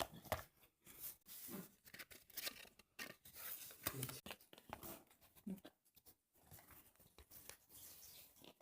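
Rustling and tearing of a phone's retail packaging being handled and opened, in quick irregular bursts.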